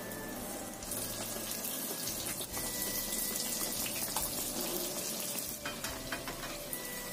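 Spring onion doughnut batter sizzling in hot oil in a wok as fresh pieces go in, the hiss swelling about a second in and easing a little near the end, with a few light clicks.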